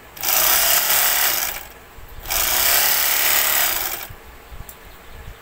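Portable edging (overlock) machine running at speed as fabric is fed through it, in two bursts of about a second and a half each with a short pause between.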